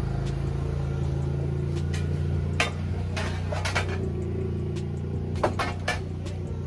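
Claas Arion 430 tractor's diesel engine idling with a steady low hum. Several sharp clicks and knocks come in the middle and latter part.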